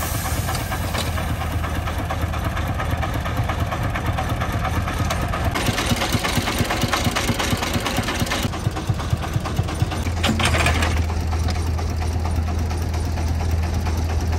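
Công nông three-wheeled dump truck's diesel engine running at a steady idle, with a rapid knocking beat and its belt drive turning. It grows louder about ten seconds in.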